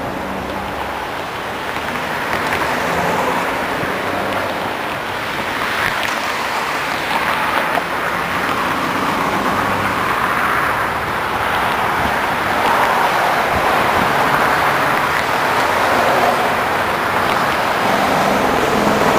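Road traffic crossing a town bridge, tyre and engine noise swelling and easing as vehicles pass, over the steady rush of river water spilling across a low weir.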